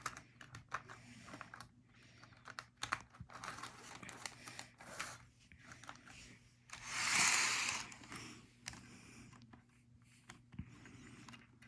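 Small plastic clicks and taps from N scale model train cars and couplers being handled and fitted together by hand, with a louder rustling hiss lasting about a second about seven seconds in. A faint steady hum runs underneath.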